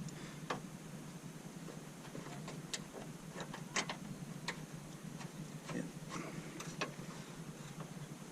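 Scattered, irregular light clicks and taps of metal parts and hand tools being handled while the new radiator's two mounting brackets are fitted.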